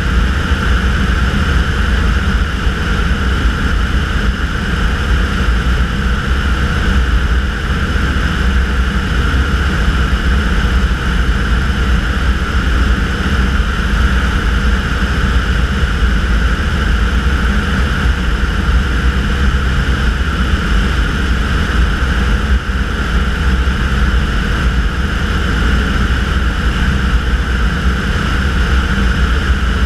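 Tanarg flex-wing trike's engine and pusher propeller running steadily in flight.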